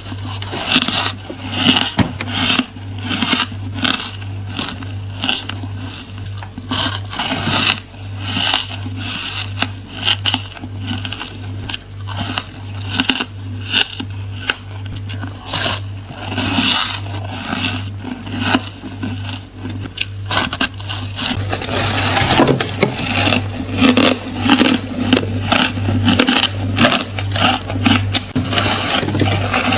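A person biting and crunching ice cubes close to the microphone: a continuous run of sharp crunches, several a second, growing louder and denser about two-thirds of the way through. A steady low hum runs underneath.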